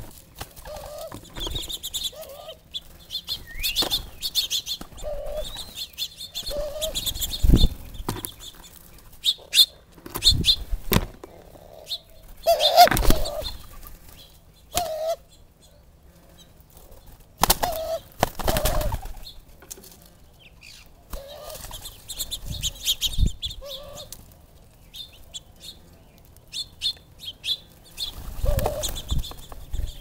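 Doves' wings flapping as they land on and take off from a hanging seed feeder, in several sudden bursts, the loudest about halfway through. Small birds chirp in between.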